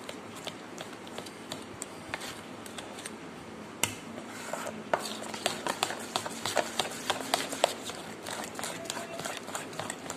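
Gram-flour batter being beaten in a steel bowl: a utensil stirring and scraping through the wet batter and clicking against the bowl's sides, the clicks coming faster and louder from about four seconds in.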